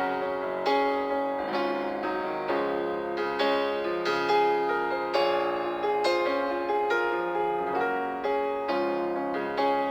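Background music: a gentle solo piano piece, notes struck at an even, unhurried pace.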